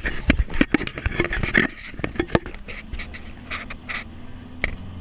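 Knocking and rubbing from a handheld camera being turned around, dense for the first two and a half seconds and then a few scattered clicks. Under it is the steady low running of the open-sided truck carrying the group.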